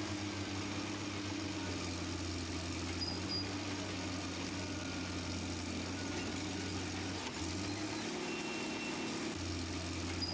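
A steady low mechanical hum, like an engine running, with a thin hiss over it; the deepest part of the hum drops out for about two seconds, around seven seconds in.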